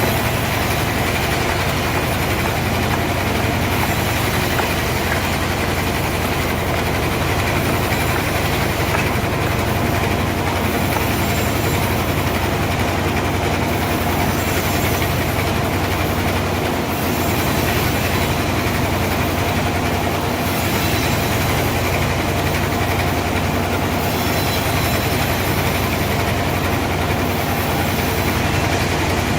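Sawmill machinery running steadily, a continuous mechanical hum that neither stops nor changes.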